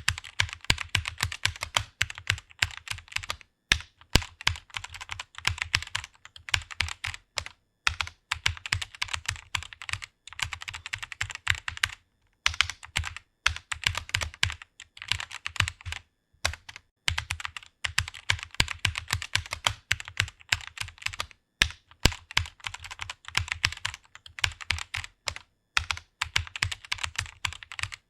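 Fast typing on a computer keyboard: rapid runs of keystroke clicks, broken by brief pauses every few seconds.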